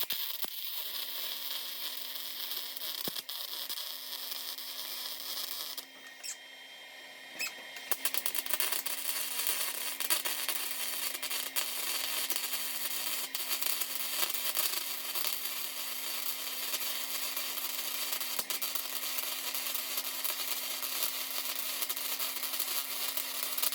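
Welding arc crackling and sizzling as gaps in rusted car-body sheet metal are filled, stopping for about two seconds near the start and then running steadily.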